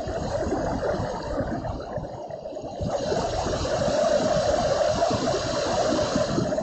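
Steady rushing noise of a storm, growing louder about three seconds in.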